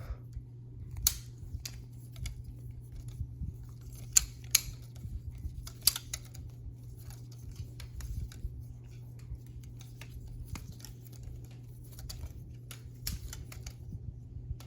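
Plastic balisong (butterfly knife) trainer being flipped: an irregular run of sharp clicks and taps as the handles and blade knock together and against the hand.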